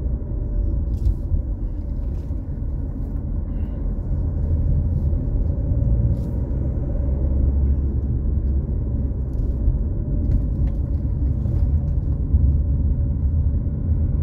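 A car driving along a road, heard from inside the cabin: a steady low engine and road rumble, with a few faint clicks.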